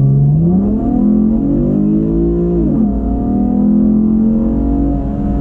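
2014 Camaro RS's 3.6-litre V6 with a Borla exhaust, accelerating: the engine note climbs, drops sharply about three seconds in as the automatic shifts up, then holds steady.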